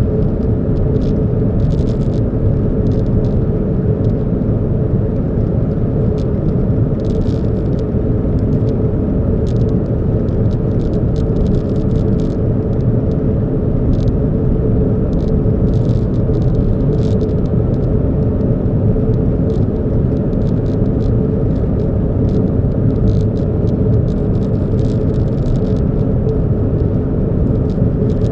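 A car on the move: steady, loud, low engine and road rumble, with many light clicks and ticks scattered throughout.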